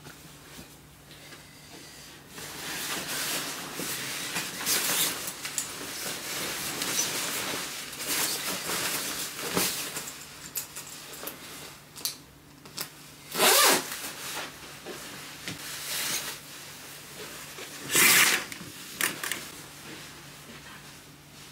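Rustling of clothing as a padded puffer jacket is put on, with two short, loud zipper pulls, one a little past halfway and one near the end.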